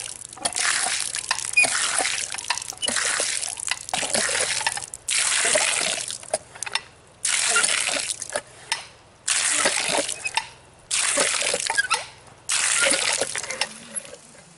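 A hand-operated pitcher pump being worked steadily, each stroke of the handle sending a gush of water out of the spout and splashing down, about every one and a half to two seconds, stopping shortly before the end. The freshly primed well is being pumped to clear out the dirty water left from digging the hole.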